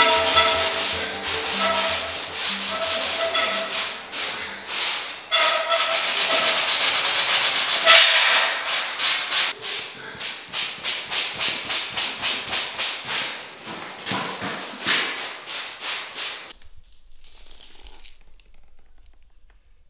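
Repeated scraping strokes of a plastering knife spreading joint compound over plasterboard joints, quicker and more rhythmic in the second half, with background music during the first few seconds. The scraping stops abruptly near the end.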